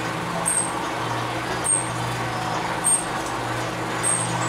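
Steady low hum of workshop machinery, with a short high-pitched chirp repeating evenly about once every 1.2 seconds.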